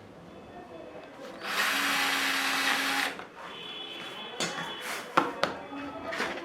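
A power drill runs in one burst of about a second and a half at a steady pitch, followed by a few sharp clicks and knocks.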